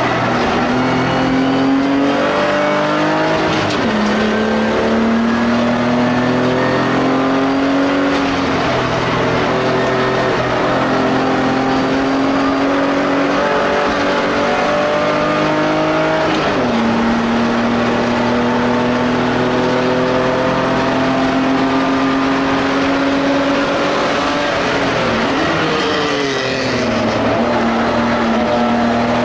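BMW E30 SpecE30 race car's straight-six engine at racing load, heard from inside the stripped cabin. Its note climbs slowly and drops sharply at upshifts about 4 seconds and about 16 seconds in, then dips and wavers near the end before pulling again.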